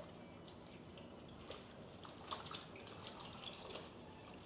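Faint, scattered small clicks and scrapes of a hand tool gripping and working a headless nail out of a motorcycle tire's tread.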